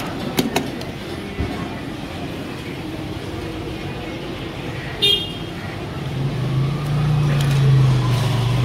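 Street traffic noise with a few clinks of a spoon against a steel bowl at the start. A short vehicle horn toot comes about five seconds in, and a passing vehicle's engine drone builds up loud near the end.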